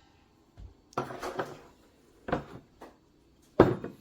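Several separate knocks and clunks of hard kitchen items being handled and set down, the loudest about three and a half seconds in.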